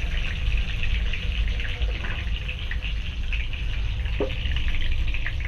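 Stuffed brinjals frying in hot oil in a kadhai: a steady sizzle with fine crackling, over a constant low rumble.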